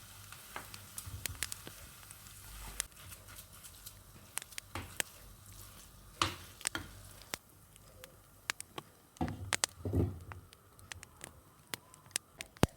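Food sizzling faintly in a frying pan, with many sharp clicks and a few heavier knocks of kitchen handling; the louder knocks come about six seconds and again about nine to ten seconds in.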